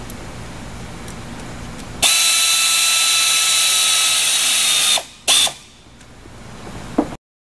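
Pneumatic air gun running on the prop-shaft coupler bolts, tightening them: a loud steady hiss with a whine for about three seconds, then one short second burst.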